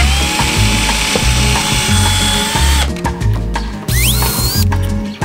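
Power drill boring through the plastic flange of a Maxxair Deluxe roof fan into the wooden frame beneath. It spins up and holds a steady whine, stops about three seconds in, then spins up again to a higher whine near the end. Background music with a steady beat runs underneath.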